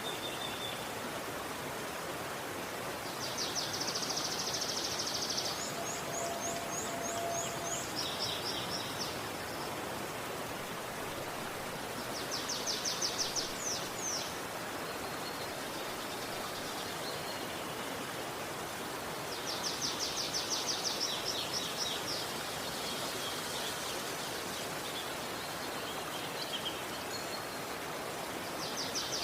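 Steady rush of a river, with birds singing high, fast trilled phrases of rapidly repeated notes that come every few seconds.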